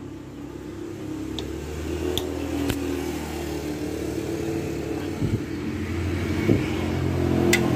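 A motor vehicle engine running nearby, its drone growing steadily louder, with a few sharp metal clinks of a T-handle socket wrench on the brake arm bolt.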